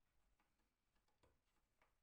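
Near silence, with a few faint light ticks.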